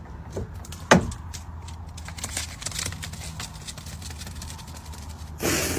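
A steady low mechanical hum, like an engine running, with a sharp click about a second in and a short burst of noise near the end.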